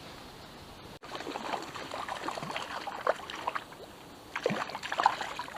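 Small river's water gurgling and splashing close by. It starts suddenly about a second in, after a stretch of quiet outdoor hiss, and goes on irregularly with louder splashes near the end.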